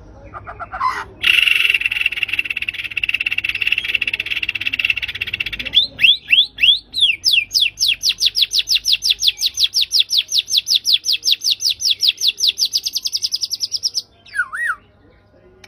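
White-rumped shama singing: a harsh buzzing rattle for several seconds, a few slurred whistles, then a long fast run of repeated downward-sweeping notes that speeds up and breaks off near the end, followed by a short lower note.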